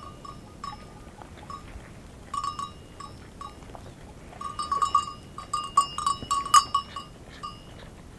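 Livestock neck bells clanking with a clear ringing pitch, in a short cluster about two and a half seconds in and a busier, louder run from about four and a half to seven seconds in, as the animals move.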